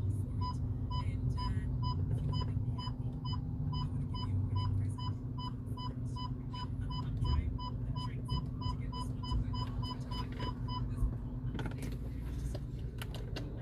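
An electronic beeper sounding a steady string of short, high beeps, about two and a half a second, over a steady low rumble; the beeping stops about eleven seconds in.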